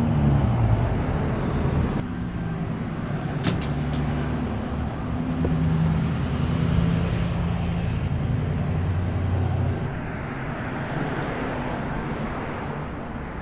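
Street traffic: car engines running and vehicles passing close by on a town road, with tyre and road noise. The engine sound eases off about ten seconds in.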